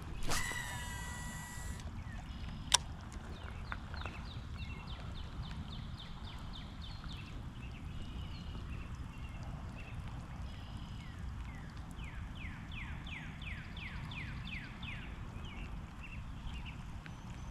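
Fishing reel cast: line whizzing off the spool for about a second and a half, a sharp click, then runs of quick repeated chirps, about three a second, as the line is reeled in, over a steady low outdoor rumble.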